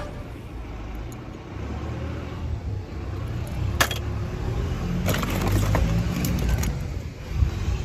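Metal die-cast toy cars clicking and clinking against each other in a plastic tub as a hand rummages through them: one sharp click about four seconds in, then a run of clinks, over a steady low rumble.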